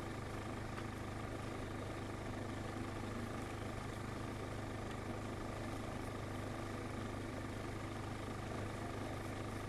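Steady hum of an engine idling, with a few constant tones that do not change in pitch.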